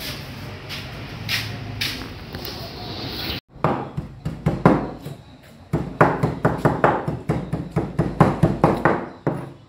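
Leaves being handled in an aluminium basin. Then, after a cut about three and a half seconds in, a large kitchen knife chops a pile of malakwang (sorrel) leaves on a wooden table in rapid strokes of about four a second, with a short pause in the middle.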